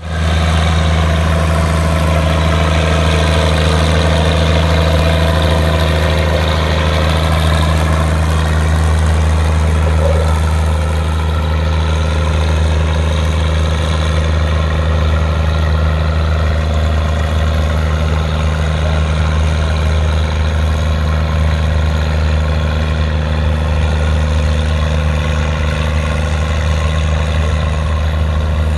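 Antique tractor engine running at a steady low pitch under load as it pulls a weighted sled. It eases slightly about a third of the way through.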